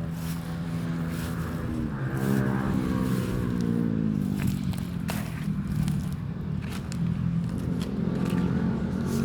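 A small engine running, its pitch rising about two seconds in and dropping back a couple of seconds later, with scattered rattles and clicks over it.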